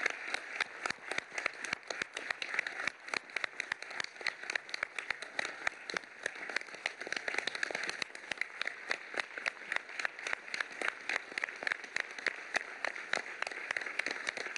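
Large audience applauding: a dense, steady patter of many hands clapping.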